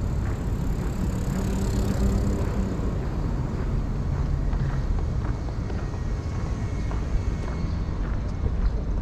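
Street ambience with a motor vehicle passing close by about two seconds in, its engine note and tyre hiss swelling and falling away, over a steady low rumble of city traffic.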